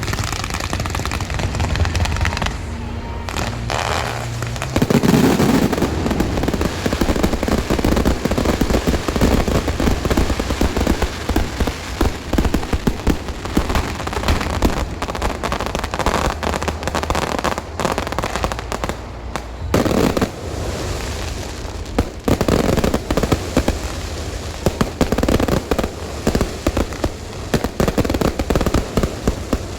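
Lantern-pole fireworks going off in a dense, continuous crackle of rapid bangs. The crackle thins briefly about three seconds in and again around twenty seconds in, then builds back up.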